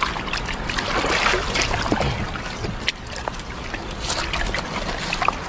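Water trickling and dripping from a freshly hauled, wet cast net as it is dragged and handled on the bank, with scattered light rustles and taps from the mesh and its weights.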